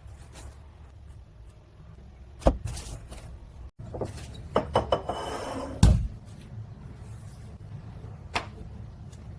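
Kitchen handling sounds: a handful of sharp knocks and clatters, with a brief scraping noise about five seconds in and the loudest thud just after it.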